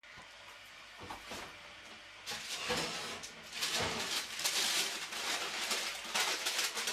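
Soft rustling with small clicks and light clatters, growing louder after about two seconds.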